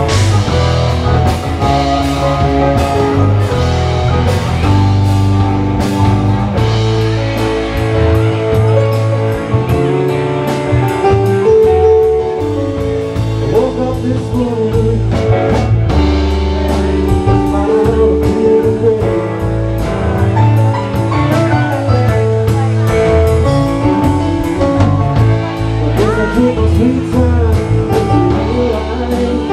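Live band playing a funk-jazz jam: drum kit keeping a steady beat under electric keyboards and electric guitars, with a voice singing at times.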